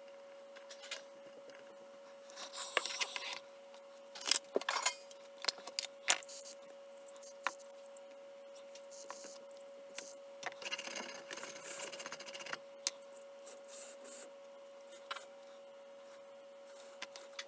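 Small metal tools and parts handled on a workbench: scattered clicks, taps, light knocks and short scraping or rustling spells, with a steady faint tone underneath.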